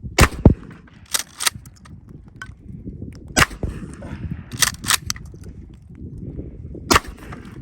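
Mossberg Maverick 88 12-gauge pump-action shotgun firing several sharp shots, with the clack of the pump being worked between them.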